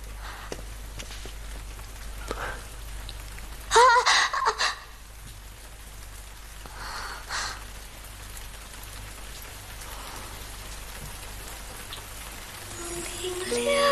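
Steady even hiss like light rain. About four seconds in comes a woman's short voiced sigh, broken into a few pulses. Soft music begins near the end.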